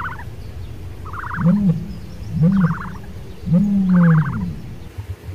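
An animal calling three times: short, loud calls that rise and fall in pitch, the last one the longest.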